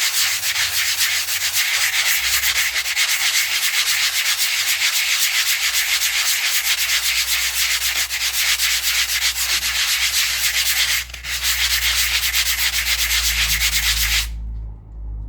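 Two 60-grit sanding blocks rubbed abrasive face against abrasive face: a fast, continuous gritty scraping. It breaks off briefly about two-thirds of the way through and stops shortly before the end.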